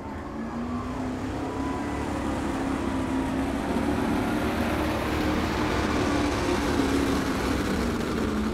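Street-modified pickup truck's engine running hard under heavy load as it pulls a weight-transfer sled through the dirt. The engine note climbs over the first few seconds and holds, then settles lower near the end.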